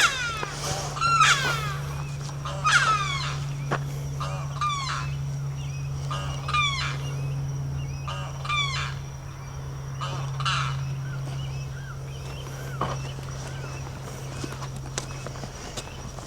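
Birds honking in a repeated string of short calls, one every second or two, growing fainter toward the end, over a steady low hum and a faint high insect-like tone.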